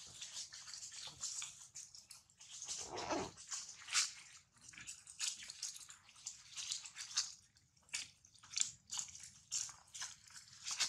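Newborn monkey suckling hard at its mother's nipple: irregular wet sucking clicks and smacks, about one or two a second.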